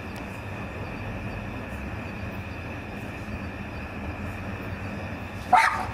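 Steady background hiss and low hum, with a single short dog bark near the end.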